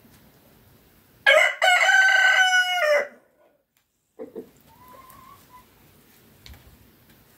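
A young cockerel crowing once: a short crow of under two seconds with a brief break just after it starts and a tail that falls away, the unpolished crow of a juvenile still learning to crow.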